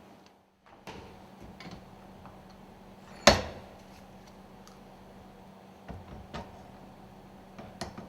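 Metal parts and tools handled during reassembly of a cylinder lubricator: scattered light clicks and one loud knock with a short ring about three seconds in.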